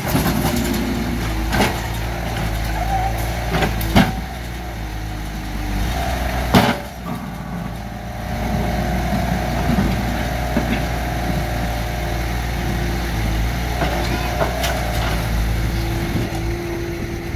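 Excavator's diesel engine running steadily, with a few sharp knocks over it, the loudest about six and a half seconds in.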